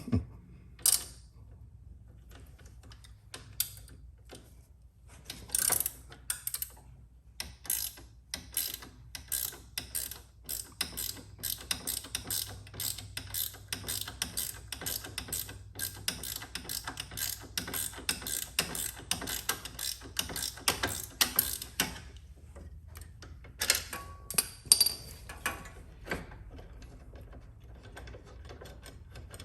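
Small hand socket ratchet clicking in rapid runs of strokes as a floorboard mounting bolt is turned out, with a few louder metallic clicks near the end.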